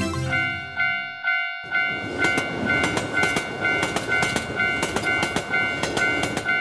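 Japanese level-crossing warning bell ringing its steady kan-kan about twice a second. About a second and a half in, a train starts passing through the crossing, its wheels clattering over the rail joints.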